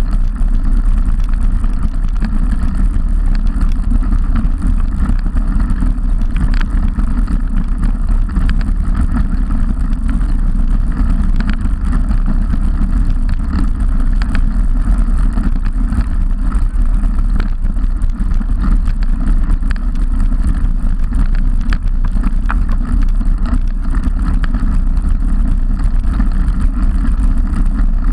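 Steady wind rush on the microphone of a handlebar-mounted camera on a moving road bike, mixed with tyre and road rumble on tarmac. Scattered small clicks and rattles sound now and then.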